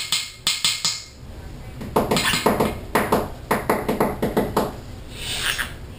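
Green-cheeked conure tapping its beak on a hard surface: a quick run of about five sharp, pinging taps, then after a pause a longer, louder run of rapid taps lasting nearly three seconds. A short high sound follows near the end.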